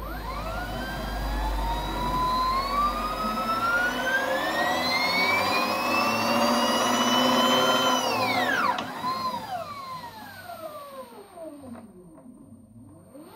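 Lexus RX400h rear drive unit's electric motor and reduction gears spinning up under inverter control: a whine of several tones that climbs steadily for about eight seconds, then drops quickly and slides down as the motor slows, and starts climbing again near the end. With Drive selected the motor is turning backwards, a direction fault in the still-untuned FOC software.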